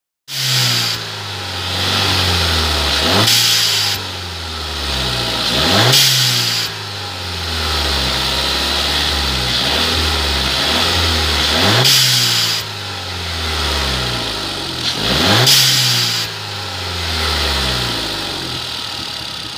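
Audi A3 1.4 TFSI turbocharged four-cylinder idling and blipped four times. At each rev peak, as the throttle shuts, the aftermarket Bonalume blow-off valve vents with a sharp hiss lasting under a second, and the revs sink back to idle.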